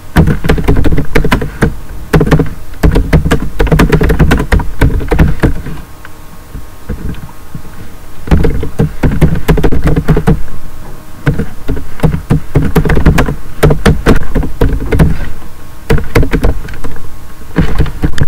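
Typing on a computer keyboard: rapid runs of loud keystrokes with dull knocks, easing off briefly about six seconds in, then picking up again.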